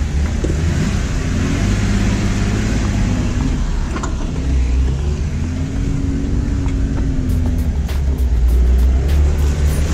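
Jeep engine running on an off-road trail, its pitch rising and falling as the throttle is worked, with a few sharp clicks in the last few seconds.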